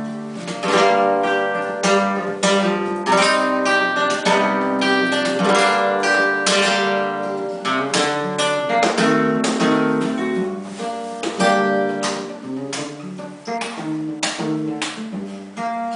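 Nylon-string Spanish guitar played solo: an instrumental passage of strummed chords and picked notes, with sharp rhythmic strokes throughout.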